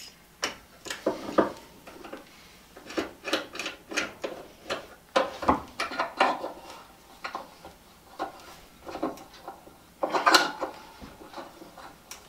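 C-clamps being fitted and screwed down to hold an electric motor to a wooden workbench: irregular clicks, knocks and scrapes of metal on metal and wood, with a louder cluster of knocks about ten seconds in.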